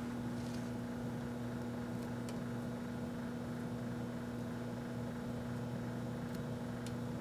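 1984 Kenmore microwave oven running with a roll of bubble gum inside, a steady electrical hum. A couple of faint ticks sound near the end.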